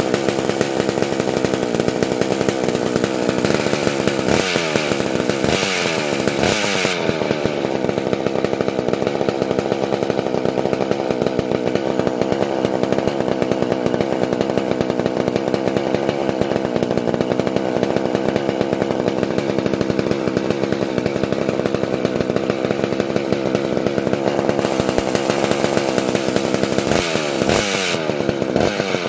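Rebuilt McCulloch CP125 chainsaw's 125 cc two-stroke engine running steadily with no bar or chain fitted, revved up and down a few times about four to seven seconds in and again near the end. It keeps running on its own now that the partly clogged carburettor idle circuit has been cleaned out.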